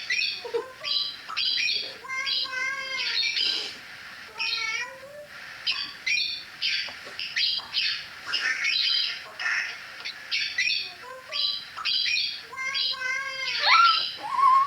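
A long run of short squawking animal calls, one or two a second, some gliding up or down in pitch, most likely a bird in a funny animal clip.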